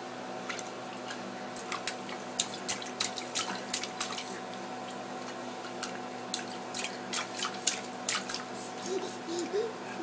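A baby's hand slapping and splashing in the water of a dog water dish, many quick irregular splashes and drips. Near the end the baby gives a short rising coo.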